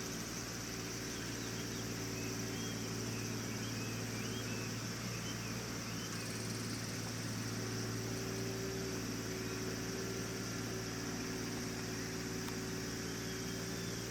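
Steady hum of small electric motors running at constant speed, with several steady pitches layered together and a few faint high chirps over it.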